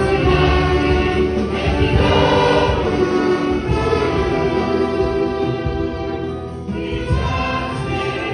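Church orchestra of violins and woodwinds accompanying a choir singing a gospel hymn into microphones. The music dips briefly about two-thirds of the way through, then swells again.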